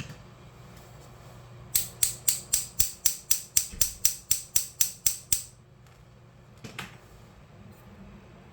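A rapid, even run of about fourteen sharp clicks, roughly four a second, from a small tool or mechanism, then one more click a little over a second later.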